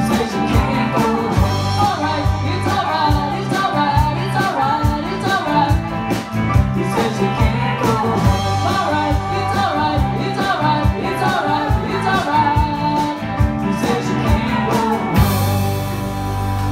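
Live band playing a rock song, with drums, guitar and singing. About fifteen seconds in, the drums move to a sustained cymbal wash.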